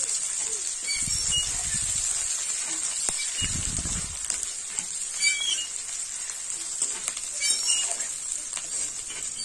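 Chopped onions sizzling in hot mustard oil in an aluminium kadai, stirred with a spatula scraping the pan.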